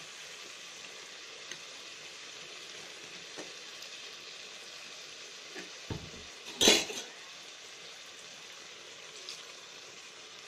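Crab gravy in a steel kadai sizzling steadily, the masala just thinned with water. About six and a half seconds in there is one loud metallic clank against the pan, with a softer knock just before it.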